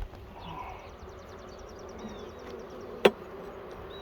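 Honeybees humming steadily around an open hive, with a single sharp knock about three seconds in.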